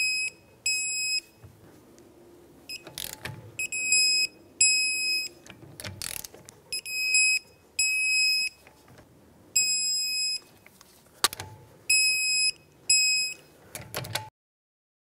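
Torque wrench beeping in short high pairs as each of five wheel lug nuts reaches its set torque of 100 foot-pounds, with a sharp metal knock between groups as the socket goes onto the next nut.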